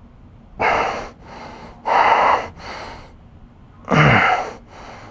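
A man breathing hard under exertion during a set of banded calf raises: three forceful breaths out about a second and a half apart, each followed by a softer breath in, the last with a short grunt.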